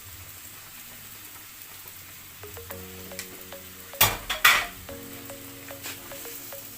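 Chopped onions, garlic and spring onion going into hot oil in a frying pan: a loud, sudden sizzle with two peaks about four seconds in, over a low, steady frying sizzle.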